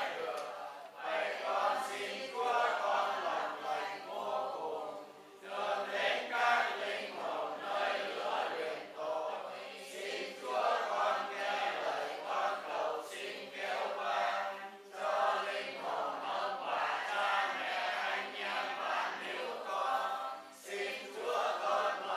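A congregation chanting prayers together in unison, the sing-song group recitation of Vietnamese Catholic prayer, with short pauses for breath every few seconds.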